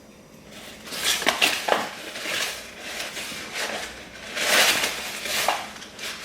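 A measuring cup scooping and scraping flour and tipping it into a mixing bowl. The scrapes and rustles are irregular, with a few light clinks of the cup against the bowl, bunched around a second in and again past the middle.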